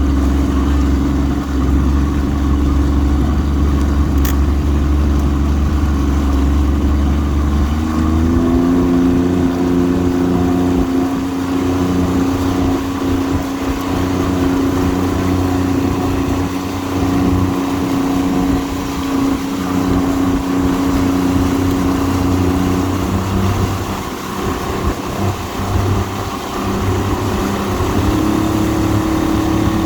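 An engine running steadily. Its pitch glides up about a quarter of the way in and steps up again near the end.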